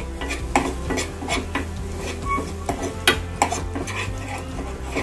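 A steel spoon stirring a thick masala paste in a nonstick saucepan, scraping and clinking against the pan in irregular strokes.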